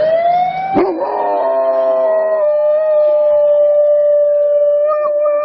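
Dogs howling. A rising wail cuts off abruptly just under a second in, then a dog holds one long, steady howl that wavers slightly near the end.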